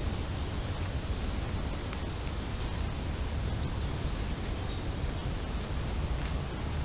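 Wind buffeting a camera microphone fitted with a wind reduction muff: a steady low rumble with a rushing hiss over it.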